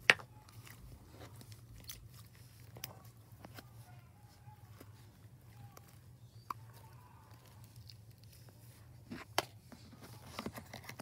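Slime being pressed and poked with fingers, giving sparse sharp clicks and pops, the loudest right at the start and a couple more close together near the end.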